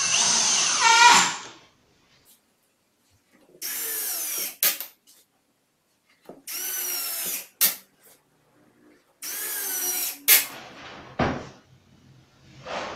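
A cordless drill/driver drives four 6 × 1¼-inch wood screws at an angle through 18 mm melamine board. Each run is a whine that rises in pitch and ends in a short sharp sound as the screw seats. A single knock sounds near the end.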